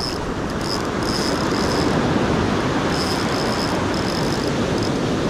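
Surf washing steadily, with the drag of a Shimano Nasci C5000 spinning reel squealing in short, repeated spurts as a large flounder runs and pulls line.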